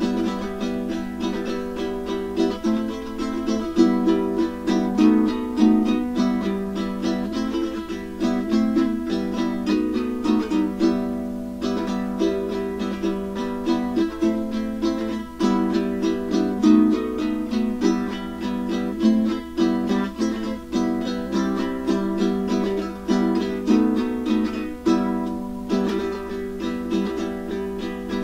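Caramel CT-100 ukulele strummed solo, playing a piece in E minor with a steady, rhythmic strum pattern of closely spaced strokes.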